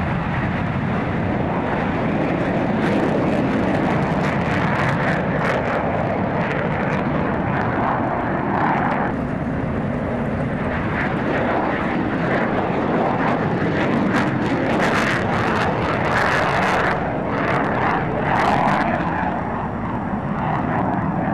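Military fighter jet taking off and climbing away, its jet engines making a loud, continuous noise.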